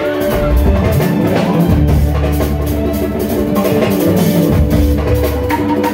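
Live band playing Senegalese mbalax: drums and electric guitar over a heavy bass line.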